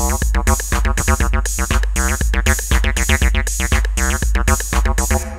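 Electronic intro music: drum machine and synthesizer playing a steady fast beat, which stops at the end and fades out.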